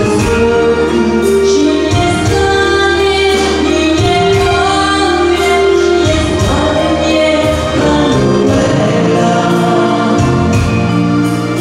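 Live music: a woman singing into a microphone over a band led by two accordions. A second woman's voice joins near the end.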